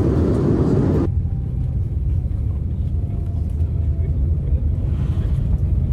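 Airliner cabin noise: a steady, loud rumble that drops abruptly about a second in to a deeper rumble with far less hiss.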